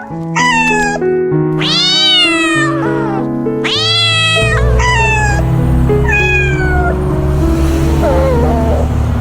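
A cat meowing about five times, the second cry long and drawn out, over background music with sustained melodic notes; a heavy bass line comes in about halfway through.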